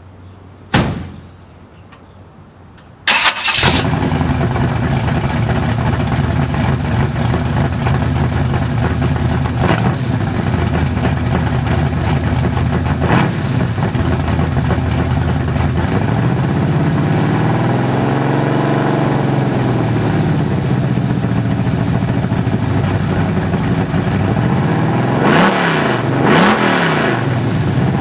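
A brief sharp sound about a second in. Then a carbureted 355 cubic inch Chevy small-block V8 with a large Comp hydraulic roller cam fires up, breathing through headers and Dynomax bullet mufflers, and settles into a loud idle. It revs slowly up and back down midway, and near the end it takes a few quick throttle blips.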